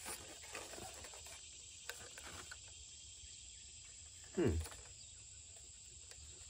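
Quiet outdoor ambience with a steady high-pitched insect drone, a few faint clicks as the tripod legs are handled, and one short hum of voice falling in pitch about four and a half seconds in.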